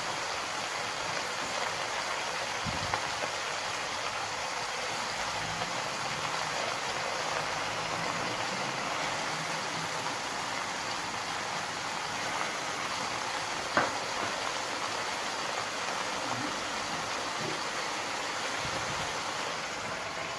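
Steady hiss of a pot of layered vegetables and cabbage cooking on a gas stove, with a sharp click about 14 seconds in.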